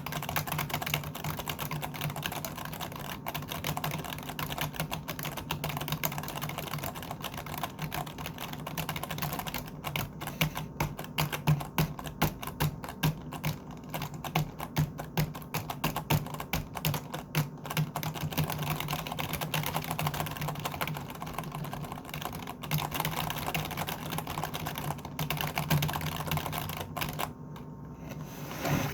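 Typing on a computer keyboard: a fast, continuous run of keystroke clicks, with a stretch of louder, more separate strokes in the middle. The typing stops a second or two before the end.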